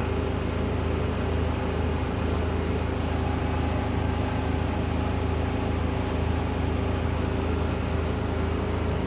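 Alexander Dennis Enviro200 single-deck bus heard from inside the saloon, its diesel engine idling with the cooling fan running, a steady hum with a few held tones.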